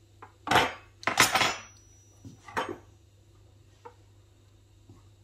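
Metal table knives clattering and clinking on a hard countertop: three sharp clatters in the first three seconds, then a faint tick.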